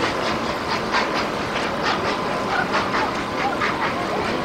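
NSW 32 class steam locomotive 3265 working a departing train, its exhaust beats coming about three a second, with faint crowd voices underneath.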